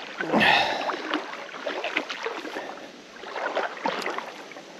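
Shallow rocky creek water splashing and sloshing in irregular bursts, the loudest about half a second in.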